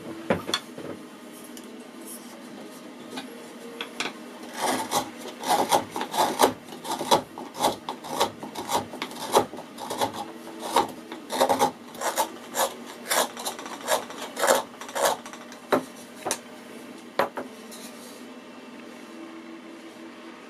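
A hand carving tool scraping the inside of an unfinished wooden bowl in short rasping strokes, about one or two a second. The strokes come mostly from about four seconds in and stop a few seconds before the end.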